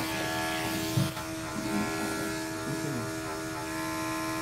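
Corded electric pet-grooming clippers running with a steady buzz, working into a cat's matted coat.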